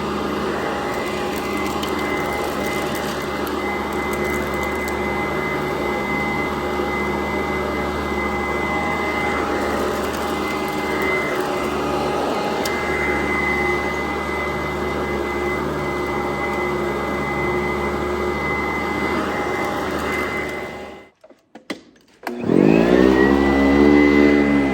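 Sanitaire SC899 upright vacuum cleaner running steadily with a high whine. Near the end it cuts out for about a second. It then starts up again, its whine rising as the motor spins up.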